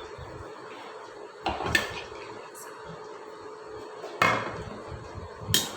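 Kitchen utensils and dishes clinking and knocking as ingredients are put into a bowl: three separate sharp knocks, about one and a half, four and five and a half seconds in.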